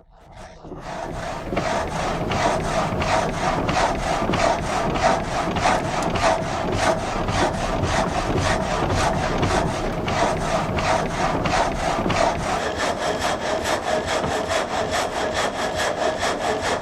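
Water-powered reciprocating frame saw starting up and then sawing through a log, its blade driven up and down by connecting rods from the water wheel, in an even, rapid rhythm of strokes over a steady hum. About twelve seconds in, a higher ringing tone joins the strokes.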